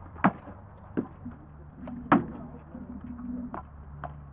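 Sword blows striking shields and armour in an armoured sparring bout: about half a dozen sharp knocks at irregular intervals, the loudest about a quarter second in and just after two seconds.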